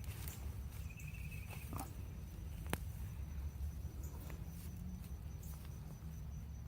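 Soft rustling and scraping of garden soil and dead potato vines being dug through, with scattered small ticks and one sharp click about three seconds in, over a steady low rumble and a faint high insect drone.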